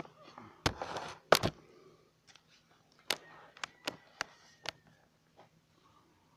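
Handling noise from a handheld phone camera being moved about: rubbing with two loud thumps about a second in, then a string of five or so sharp clicks and knocks.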